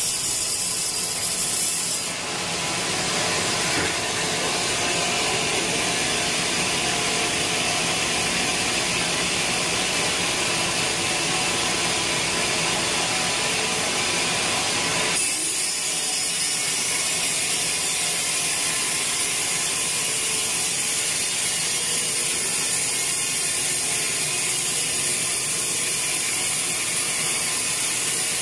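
Sawmill band saw cutting through a large teak log, a steady loud machine noise of blade in wood. The sound changes about two seconds in and again about fifteen seconds in.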